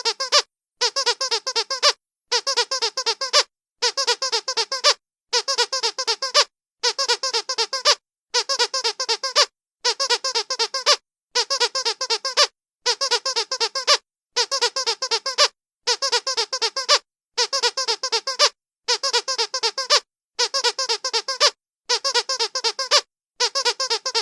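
A looped squeak sound effect: a burst of rapid, high-pitched squeaks about a second long, repeated identically with short silent gaps about every one and a half seconds.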